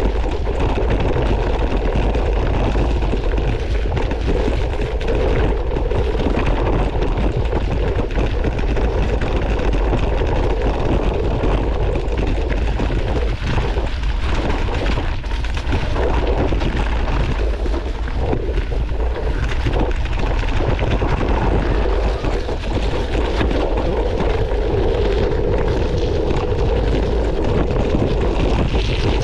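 Wind buffeting an action camera's microphone as a mountain bike descends a rocky trail at speed, with a steady low rumble. The tyres rumble over stones and the bike rattles and knocks throughout.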